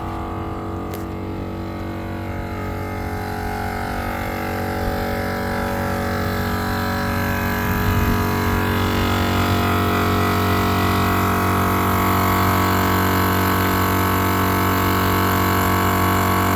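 Morrflate 10.6 Pro 12-volt air compressor running steadily, inflating four large truck tires at once through a common manifold as the pressure climbs from about 27 to 30 psi. Its hum grows gradually louder.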